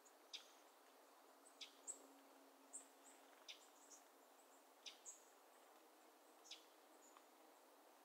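Faint bird calls in an open meadow. One bird gives short, sharp chip notes about every second or so, with thin, higher calls from another bird in between, over a soft steady hiss.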